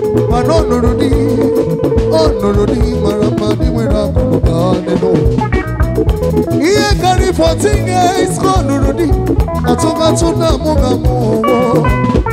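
Live band music: electric guitars over a drum kit's steady beat, with a singer's voice through the microphone.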